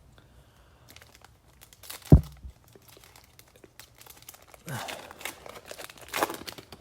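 A single thump about two seconds in, then crinkling and tearing of a foil trading-card pack wrapper being torn open.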